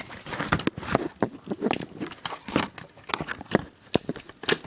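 Rapid, irregular cracking and clicking of hard plastic being worked and pried at, with a sharper snap near the end.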